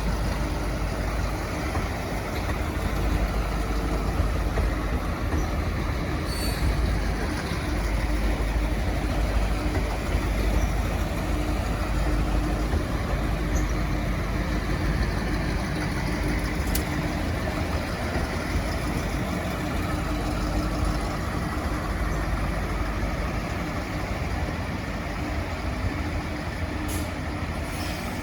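V/Line diesel train engines running with a steady low rumble and a constant hum, the sound of the trains moving slowly through the station. No horn sounds.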